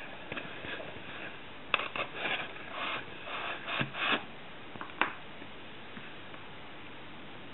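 Cardboard and small craft materials being handled: scattered rubs and scrapes with a few light knocks for about five seconds, then only a steady faint hiss.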